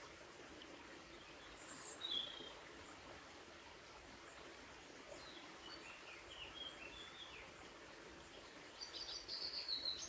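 Small birds chirping over the faint, steady trickle of a shallow stream: a short high call about two seconds in, a few softer notes in the middle, and a louder run of chirps near the end.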